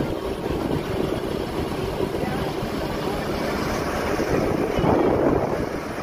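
Bus running along a hill road, its engine and tyre noise heard through an open side window, with some wind on the microphone.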